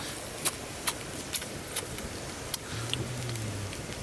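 Wood fire crackling: irregular sharp pops and snaps over a steady hiss.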